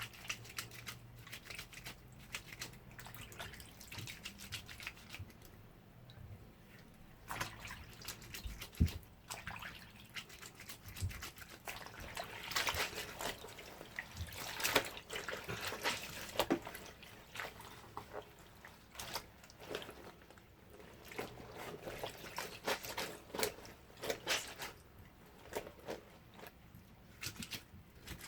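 Clothes being washed by hand in a basin of water: irregular splashing, sloshing and dripping, busiest around the middle.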